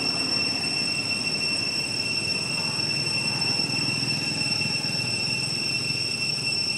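Insects droning steadily as two unbroken high-pitched tones over a low, even hiss.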